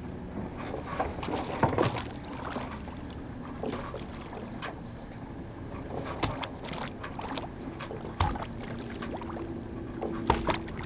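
Water rushing along a sailboat's hull with wind on the microphone, broken by a few sharp clicks and knocks, about a second and a half in, around six and eight seconds in, and near the end.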